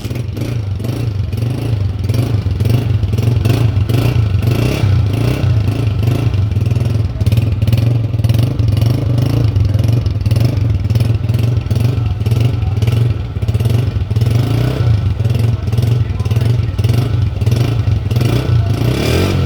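United US 125 motorcycle's single-cylinder four-stroke 125cc engine running steadily just after being started.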